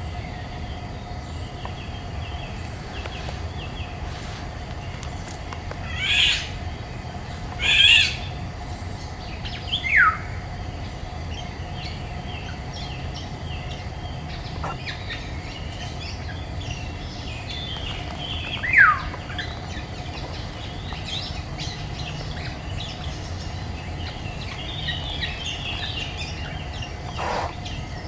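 Woodland birds calling: small songbirds chirping throughout, with two louder harsh calls close together, then two short falling whistles some seconds apart and a lower falling call near the end.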